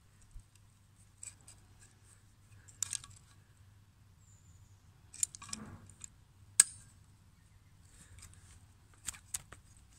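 Locking pliers (mole grips) being adjusted and clamped onto the rusty screw of a blacksmith's leg vice: scattered sharp metal clicks and snaps from the pliers' jaws and locking lever, the loudest about two-thirds of the way through.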